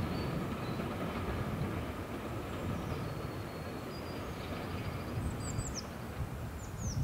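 A steam train hauled by a Hunslet Austerity saddle tank locomotive fading into the distance, its low rumble dying away. Birds chirp from about five seconds in.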